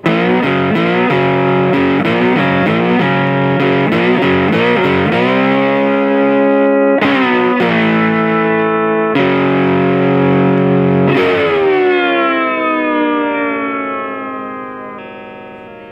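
Intro music on a distorted electric guitar: short chord hits, then longer held chords, the last one ringing out and fading over the final few seconds.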